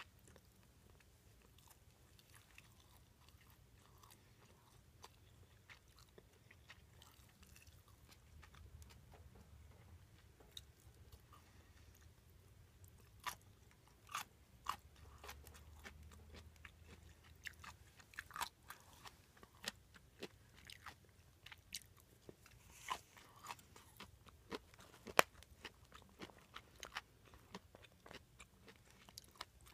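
Close-miked chewing and biting. Quiet at first, then from about halfway a run of sharp, crisp crunching clicks.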